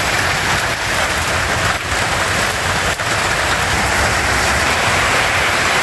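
Rain falling steadily, a dense even hiss with no change in strength.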